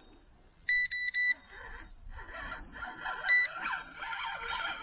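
Electronic bite alarm on a carp rod pod sounding three quick beeps, then a single beep about two seconds later: line pulling through the alarm.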